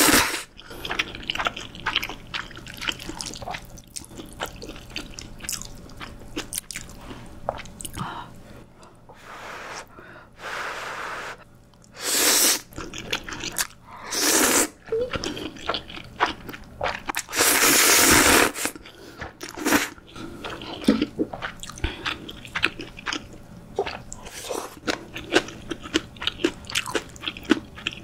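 Close-miked eating of Chapagetti jjajang instant noodles: several loud slurps of noodles, the longest about two-thirds of the way in, with wet chewing and mouth clicks in between.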